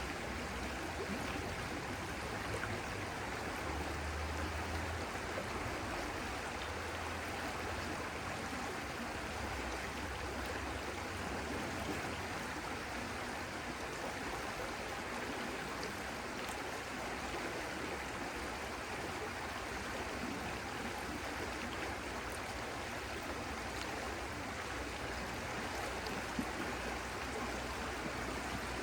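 Stream water flowing steadily, an even, unbroken rush.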